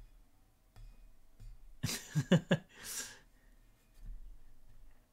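A man's short laugh, about two seconds in: a few quick voiced pulses and then a breathy exhale, over a low room hum.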